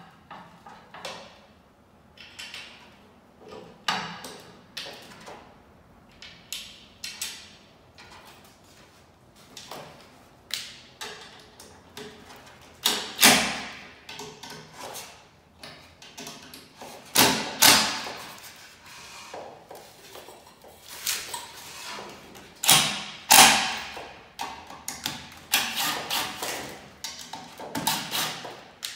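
A cordless drill driving screws in short bursts as wooden ceiling fan blades are fastened to their metal brackets, among knocks and clatter from handling the blades and hardware. The drill bursts are loudest and most frequent in the second half.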